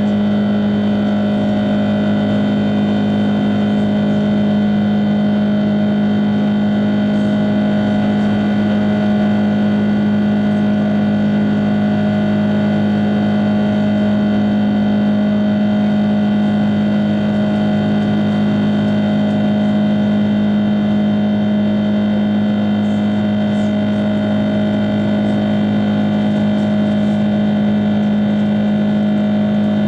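Cabin noise of an Airbus A330-300 in its climb after takeoff: its Rolls-Royce Trent 700 turbofans give a steady loud drone with a strong low hum and several steady higher tones over a constant rush.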